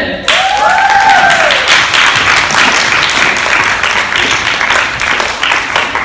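An audience clapping and cheering, starting suddenly just after the winner is announced, with a few whooping voices in the first couple of seconds; the applause tapers off near the end.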